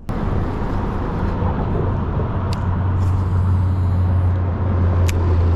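Steady low rumble of road traffic from nearby highway bridges, with a deep hum and two faint ticks.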